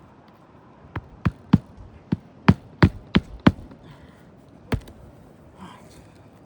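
A quick, uneven run of about eight sharp knocks over some two and a half seconds, then a single knock about a second later.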